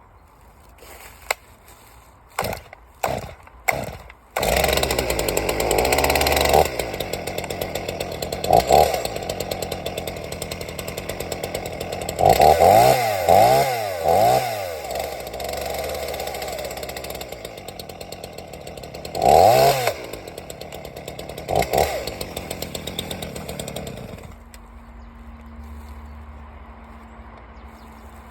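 Solo 642 two-stroke chainsaw being started: a few short bursts, then it catches about four seconds in and runs. It is revved up and down several times and settles to a quieter idle near the end. This is its first run after a new piston and cylinder and a new carburettor diaphragm kit.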